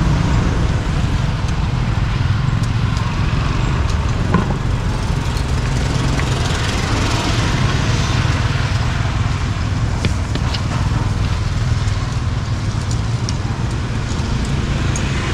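Roadside street noise: motorbikes and cars passing over a steady low rumble, with a few sharp clicks.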